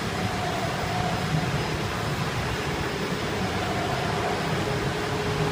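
Rotary pulp-moulding egg tray forming machine running: a steady mechanical hum and low rumble, with faint whining tones that come and go.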